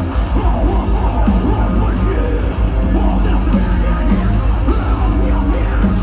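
Metalcore band playing live: distorted guitars, bass and drums, with harsh screamed vocals over them.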